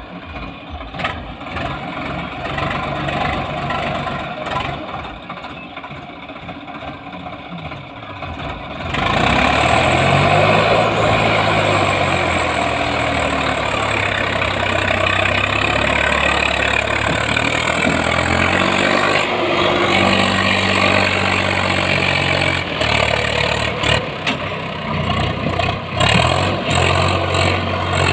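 A Swaraj 744 XT tractor's three-cylinder diesel engine runs fairly quietly at first. About nine seconds in it jumps loud and revs up and down under heavy load, pulling a fully loaded soil trolley uphill.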